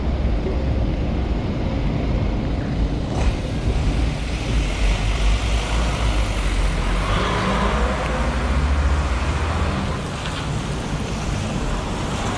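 Traffic on a wet city street: a steady low rumble with the hiss of tyres on wet road that swells around the middle and then fades.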